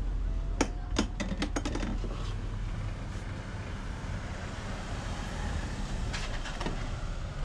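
Empty drink containers clicking and clattering as they are handled, with a few more knocks about six seconds in as one is pushed into the round intake of a recycling vending machine, over a steady low hum.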